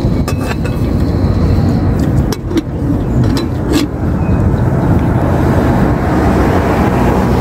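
Steady rumble of road traffic, with a few light clicks in the first four seconds; the noise grows a little brighter about halfway through.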